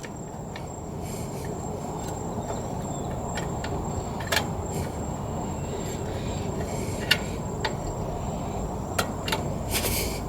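Scattered light metallic clicks and taps as a wheel cylinder bolt and brake line are worked into place on a drum brake backing plate, over a steady low background rumble.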